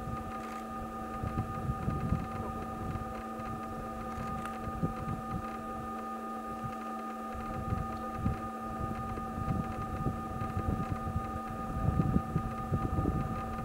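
Wind buffeting the microphone in uneven low rumbles, strongest near the end, over a steady hum made of a few fixed tones.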